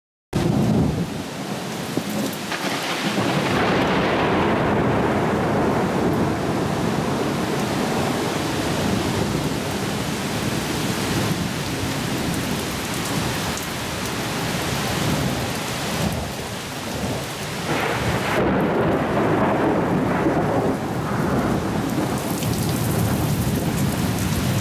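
Heavy thunderstorm rain pouring steadily, with low rolls of thunder swelling and fading several times.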